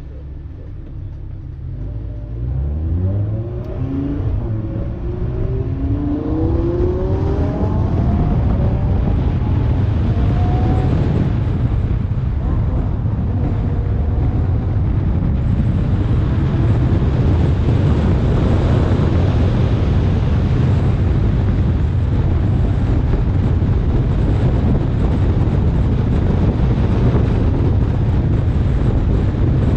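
Lamborghini Huracán's V10 engine accelerating through the gears, its pitch rising in several sweeps over the first ten seconds or so. It then runs on at speed under a steady rush of wind and road noise.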